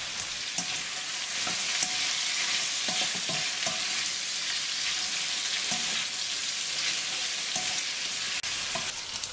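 Beef strips, celery and spring onions sizzling steadily in a hot wok as a spatula stirs and tosses them, with scattered short scrapes and taps of the spatula against the pan. This is the brief final stir-fry after the vegetables and salt go in.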